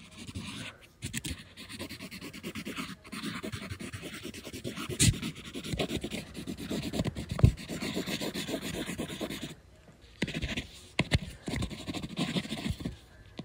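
Graphite pencil scratching on paper close to the microphone in quick strokes and scribbles, with a couple of sharper taps of the tip and a brief pause about ten seconds in.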